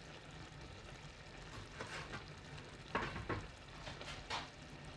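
Creamy Tuscan chicken sauce sizzling steadily in a frying pan over the heat, with a few short knocks, about two, three and four seconds in.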